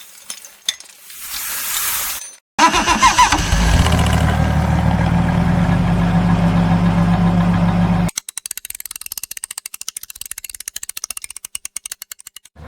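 Engine sound effect: an engine cranks, catches and runs steadily for about five seconds, then cuts off abruptly. A fast run of clicks follows.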